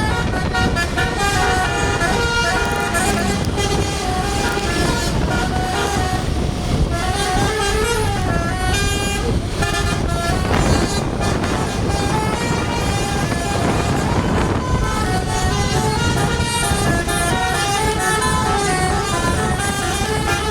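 Tour bus's 'telolet basuri' multi-tone air horn playing a tune without a break, its notes stepping up and down, over the steady low rumble of the bus.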